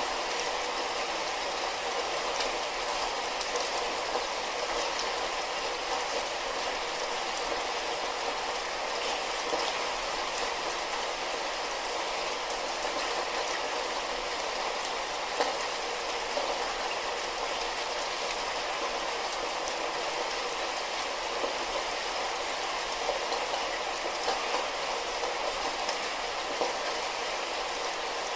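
Steady light rain with scattered drops tapping.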